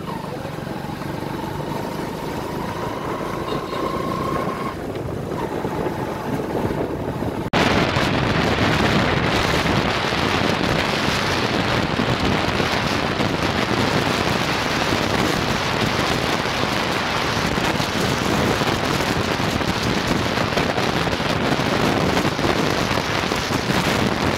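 Road traffic noise with a faint engine whine slowly rising in pitch. About seven seconds in, it gives way abruptly to a loud, steady rush of wind on the microphone as the camera moves along the road.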